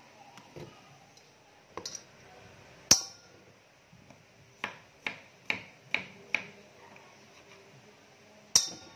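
Sharp kitchen knocks and clinks around a stainless steel bowl of cut chayote. There are about eight separate taps: the loudest comes about three seconds in, and a quick run of five follows in the middle.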